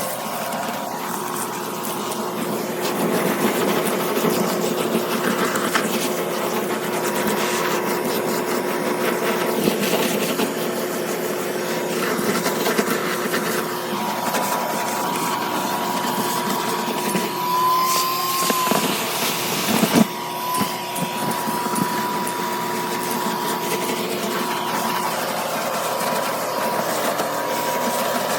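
A vacuum cleaner running steadily with a whine, during cleanup of lint and nest debris; a sharp knock about 20 seconds in.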